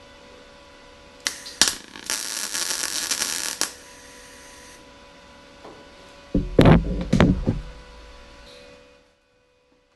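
MIG welder tacking 1/8-inch filler rod onto the edge of a sheet-metal truck fender: two short pops as the arc strikes, then a steady crackling sizzle for about a second and a half. A few loud knocks follow about two seconds later.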